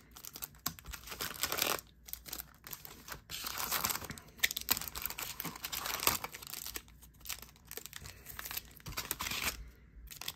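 Foil-wrapped trading-card packs crinkling and rustling as they are pulled from a cardboard box and handled, an irregular run of crackles and small clicks.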